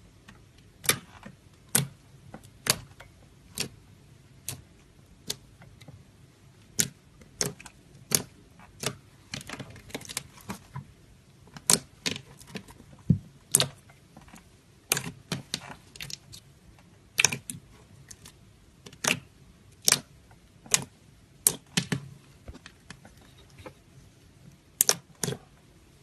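Slime being squeezed and poked, giving sharp, irregular pops and clicks, about one a second, sometimes in quick clusters.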